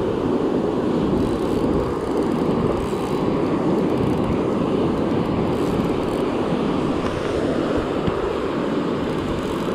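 Steady rush of breaking surf and wash over the sand, an even rumbling noise with no separate events.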